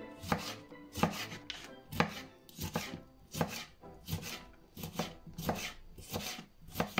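Kitchen knife dicing a cucumber on a wooden cutting board, the blade knocking on the board in a steady run of about two to three chops a second.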